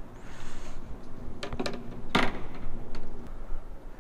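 Handling sounds from fish and tackle in a kayak: a quick run of clicks about one and a half seconds in, then a single louder knock about two seconds in.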